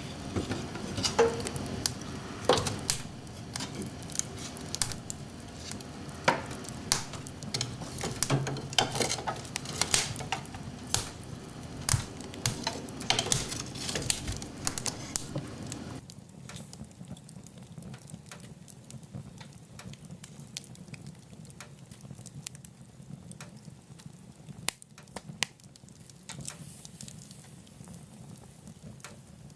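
Wood fire crackling and popping in a wood-burning stove, sharp snaps over a steady hiss. A little over halfway through the sound cuts abruptly to a quieter stretch with fewer, fainter pops.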